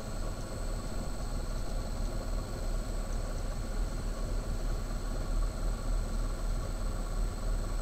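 Car alternator converted to a delta-wound permanent-magnet brushless DC motor, running steadily on its speed controller: an even hum with a thin steady high whine over it.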